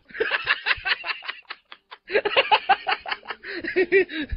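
Laughter in quick repeated bursts, with a short pause about halfway through before the laughing starts up again.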